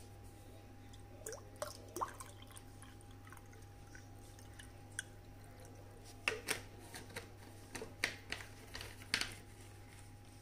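Water being poured into a stemmed glass of nannari syrup and soaked sabja (basil) seeds, heard as faint, scattered splashes and drips, most of them in the second half.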